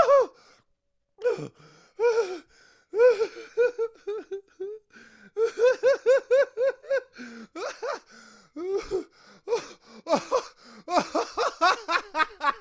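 Hysterical laughter in quick, high-pitched pulses, coming in several fits with short breaks between them.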